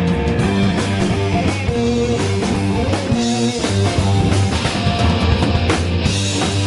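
Live blues-rock band playing: a Les Paul-style electric guitar through a Marshall amplifier over a drum kit, loud and steady.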